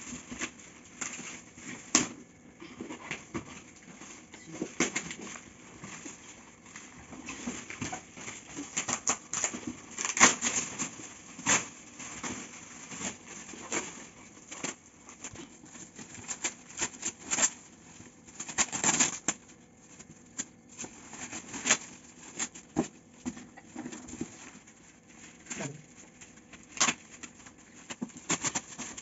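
Shiny gift wrapping crinkling and rustling as a parcel is unwrapped by hand, with irregular crackles and sharp rips, a few of them louder, about 10 and 19 seconds in.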